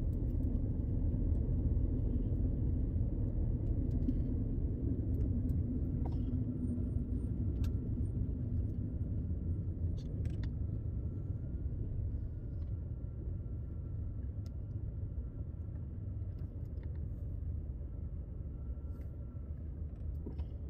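Car cabin noise while driving slowly: a steady low rumble of engine and tyres that eases off a little toward the end. A few faint clicks, and a faint steady high tone from about six seconds in.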